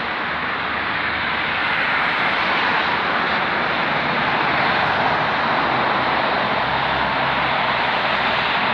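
Steady noise of traffic on a multi-lane urban expressway, mainly the tyre and engine sound of passing cars, getting a little louder in the first couple of seconds. A lower engine hum joins in during the second half.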